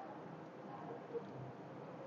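Potato pakoras frying in oil in an aluminium kadai, a faint steady sizzle, with one light tick a little past a second in.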